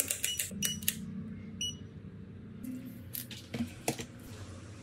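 Digital multimeter's rotary selector dial clicking as it is turned, with three short high beeps from the meter in the first two seconds, then a few light clicks and knocks.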